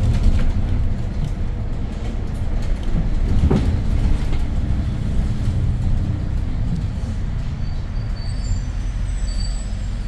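Hyundai New Super Aerocity city bus on the move, heard from inside the cabin: its C6AF CNG engine and the road noise make a steady low rumble. There is a single knock about three and a half seconds in, and a few faint high squeaks near the end.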